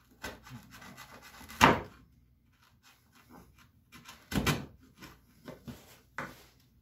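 Hand chisel paring and scraping wood: a run of short scraping strokes, with a sharp, loud crack about a second and a half in and another, the loudest, around four and a half seconds.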